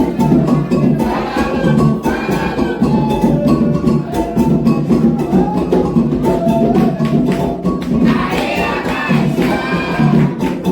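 Candomblé drumming on atabaque hand drums with a group singing chants for the orixás, the percussion going in a steady driving rhythm under the voices.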